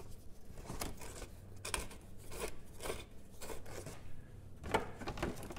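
A string of short, irregular scrapes and clicks from a screwdriver working at the rusty, broken Phillips screws and plastic anchors that hold a car's plastic underbody splash shield.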